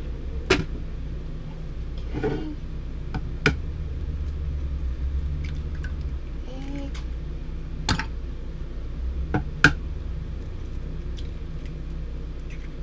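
A fork striking the sides of a glass measuring cup while whisking egg and milk: several sharp clinks a second or two apart, over a steady low hum.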